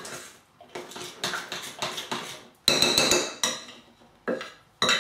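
Spoon stirring and scraping partly melted chocolate around a bowl, then a few sharp clinks against the bowl about two and a half seconds in and another hard knock near the end, each ringing briefly.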